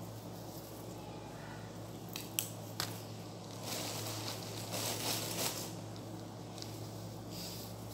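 Bunches of fresh mint handled and sorted by hand: leaves and stems rustling, with a few sharp snaps about two to three seconds in and a louder rustle in the middle.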